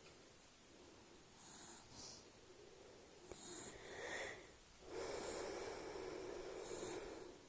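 A sleeping dog snoring, with a few noisy breaths. The longest and loudest starts about five seconds in and lasts about two seconds.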